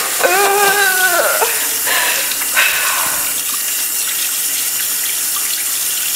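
Steady rush of running water, like a tap running. A person's voice holds one note for about a second near the start, and two short vocal sounds follow a second or so later.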